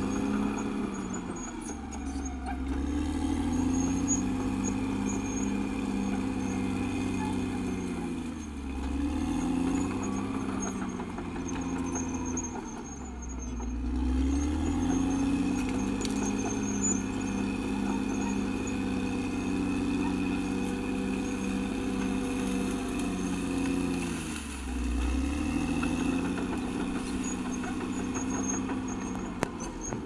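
Caterpillar D6R XL crawler bulldozer's diesel engine running under load, its pitch dropping and climbing back several times as the load changes.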